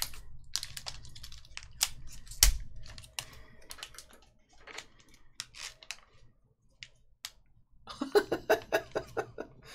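Metallic foil trading-card pack being torn open and handled, giving irregular crinkles and sharp clicks, the loudest about two and a half seconds in. Near the end a quick run of crinkles comes as a card in a plastic magnetic holder is slid out of the foil pouch.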